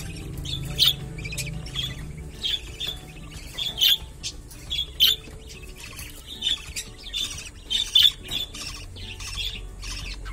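Parakeet chicks squawking, short harsh calls repeated over and over, roughly two a second.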